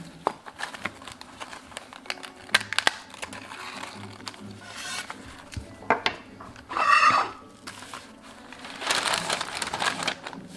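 Crisp crepe crackling and clicking as it is folded and pressed on a wooden board, then a paper crepe wrapper rustling loudly as the crepe is pushed into it, in a short burst about seven seconds in and again for about a second near the end.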